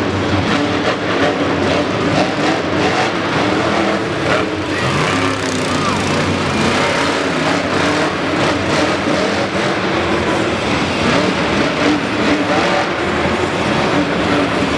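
Monster truck engines running loud and continuous in an arena, their pitch rising and falling as they rev.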